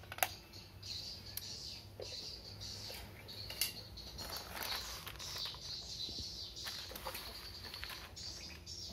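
Handling noises: irregular rustling with a few sharp clicks, the loudest just after the start and another about three and a half seconds in, as a small plastic USB tester and a cable-reel extension socket are handled on a tiled floor.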